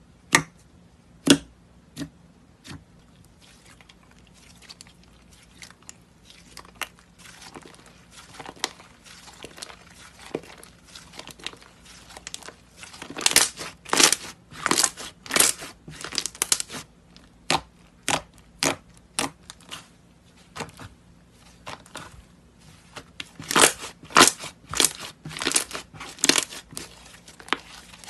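Thick white slime being handled close up: a few sharp pops as a finger pokes into it in the first seconds, then bursts of crackling and tearing as it is stretched, pulled apart and folded, busiest about halfway through and again near the end.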